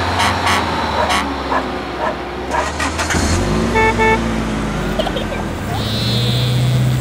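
Car sound effect for toy play: an engine hum, then a short double horn beep about four seconds in, and a new engine note that rises and settles into a steady hum. A few short sharp sounds come in the first second or so.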